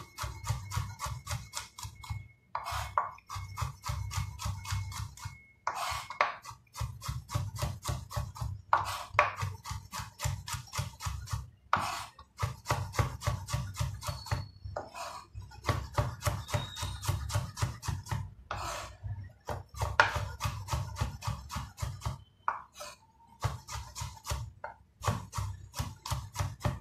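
Chef's knife slicing garlic cloves on a wooden cutting board: quick runs of knocks, about five cuts a second, each blade stroke striking the board, broken by short pauses between runs.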